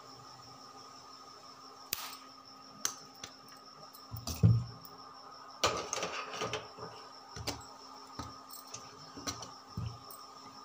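Kitchen utensils and a wooden rolling board being handled while dough is shaped, giving irregular sharp knocks and clatter. The loudest is a heavier thump about four and a half seconds in, and there is a quick cluster just after it, all over a faint steady hum.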